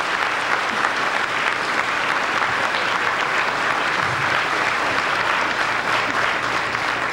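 Large audience applauding, a dense and steady mass of clapping.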